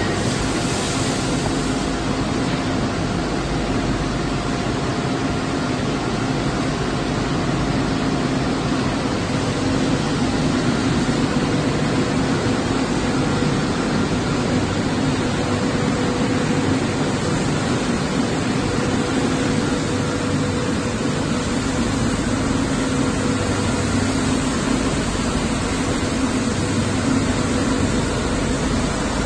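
Automatic pallet washing machine running: a steady rushing noise of motors, water spray and blowers, with a low steady hum underneath.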